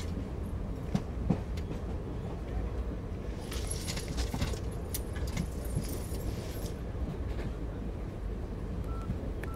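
Steady low rumble of a moving train heard from inside a sleeper berth, with a few light clicks and a stretch of rustling in the middle. A short electronic beep from a mobile phone comes near the end.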